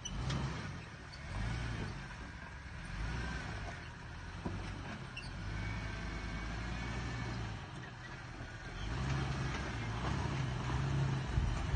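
Jeep TJ Wrangler engine heard from a distance, revving up and easing off in several surges as it crawls up a rock ledge.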